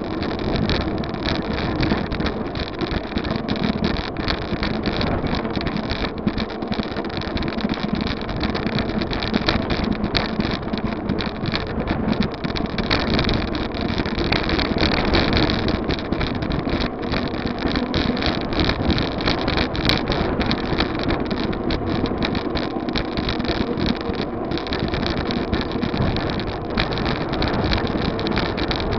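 Wind buffeting the microphone of a bicycle-mounted camera while riding: a loud, continuous noise that flickers quickly in level.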